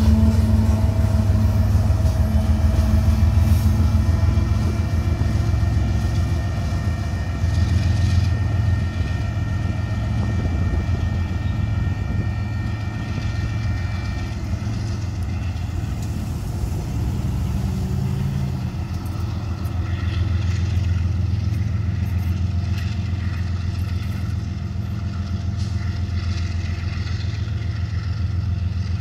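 Freight train of tank cars rolling past: a steady low rumble of wheels on the rails, with a high thin ringing whine over it that dies away about halfway through.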